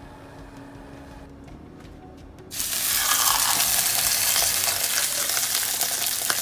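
A whole slab of beef short ribs sizzling and crackling in hot vegetable oil in a metal roasting tin as it sears. The sizzle starts suddenly about two and a half seconds in, after a quiet stretch, and stays loud.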